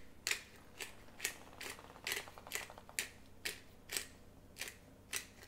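Pepper mill being twisted to grind black peppercorns: a run of crunchy, ratcheting clicks about twice a second, stopping shortly before the end.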